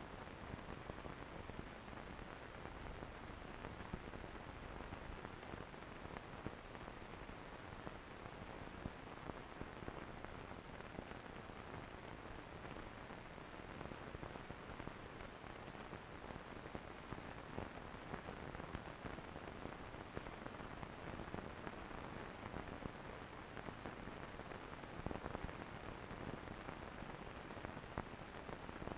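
Steady faint hiss with scattered small crackles and clicks: the empty soundtrack of a silent amateur film transfer, with no sound of the trains themselves.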